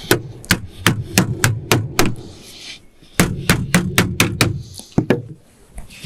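Roofer's white-headed mallet striking thin sheet steel, folding a seam edge over by hand. Two runs of quick, sharp strikes, about three to four a second, with a short pause near the middle.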